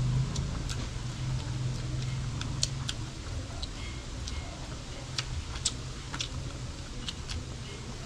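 Eating sounds: irregular small clicks and smacks from chewing and a spoon working food off a banana-leaf spread, over a low steady hum that fades out about three seconds in.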